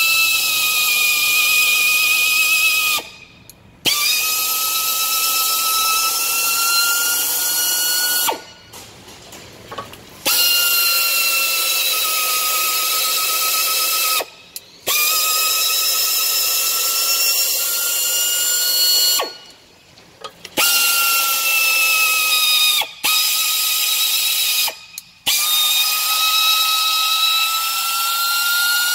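Air drill spinning a stud cleaner over the wheel studs of a semi truck's front hub, scouring the rust off the threads. It runs as a high-pitched whine with hiss in about seven runs of two to four seconds, one stud after another, with short stops between.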